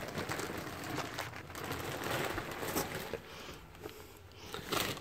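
Faint rustling with scattered light clicks from the handheld camera being moved around.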